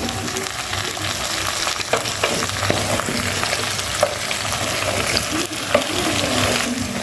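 Food frying in hot oil in a pan, sizzling steadily, with scattered knocks and scrapes of a utensil stirring it.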